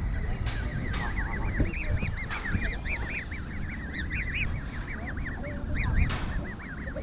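Canada goose goslings peeping continuously in quick high arched peeps. A few short harsh calls come from the adult geese, the loudest about six seconds in, over a low rumble of wind on the microphone.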